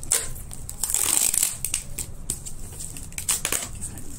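Clear plastic stretch wrap and packing tape on a cardboard parcel crinkling and crackling in irregular bursts as hands handle and turn the box.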